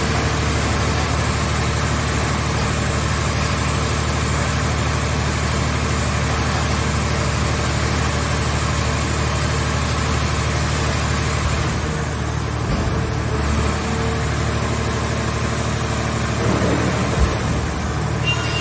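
Engine of a car shell baler running steadily, with one sharp knock about 17 seconds in.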